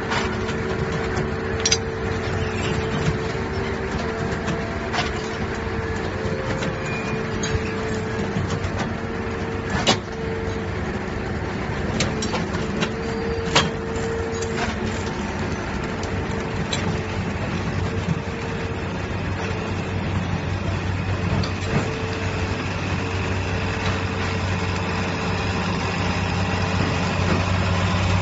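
Heavy construction machine running steadily, with a constant hum and a few sharp metallic knocks; its low engine drone grows stronger near the end.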